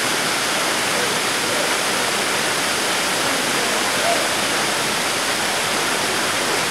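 Waterfall plunging into a deep pool: a steady, even rush of falling water.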